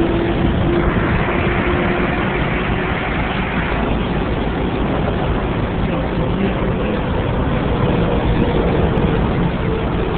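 Steady highway vehicle noise, with passing traffic and heavy engines running, loud and unbroken, and engine tones that drift slowly in pitch.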